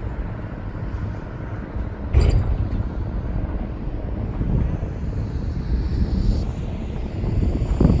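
Heavy construction machinery running, a steady low rumble, with one sharp metallic clank about two seconds in.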